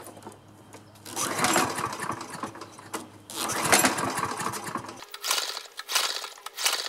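Toro Recycler walk-behind mower engine being pull-started several times with its recoil starter rope, cranking without catching: the hot engine will not restart.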